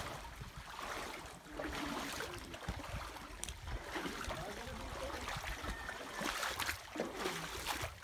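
Shallow seawater sloshing and splashing around the legs of people wading through it, irregular and uneven.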